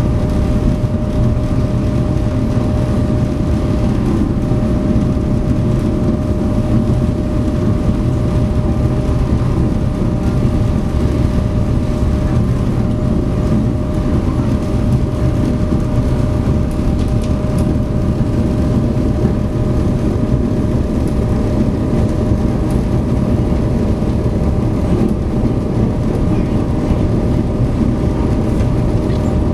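SeaBus passenger ferry under way, its engines running in a steady, unbroken drone of low rumble with a constant higher hum on top.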